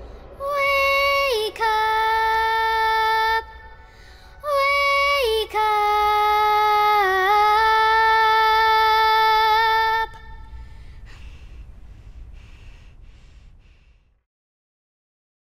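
A young girl singing solo in two long phrases. Each starts on a high note, steps down and is held, and the second wavers in pitch partway through. After the singing stops, a low rumble fades away to silence.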